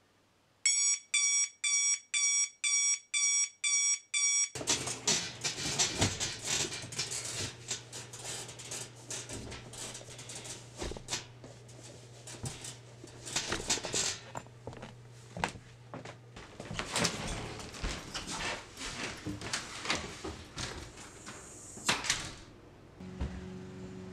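Digital alarm clock beeping, eight quick beeps about two a second, stopping about four seconds in. After that come irregular rustling and knocks as someone moves about and handles shoes, over a low steady hum that fades out about two-thirds of the way through.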